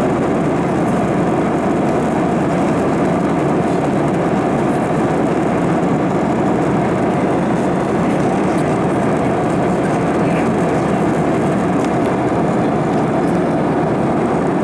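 Steady, even rumble of a moving vehicle, with no rise or fall in level.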